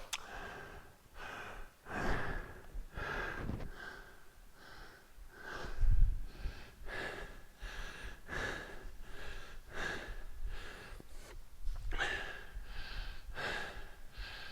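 A man breathing hard and fast through a set of hang snatch thrusters, about one and a half heavy breaths a second, the breathing of hard exertion. A low thump comes about six seconds in.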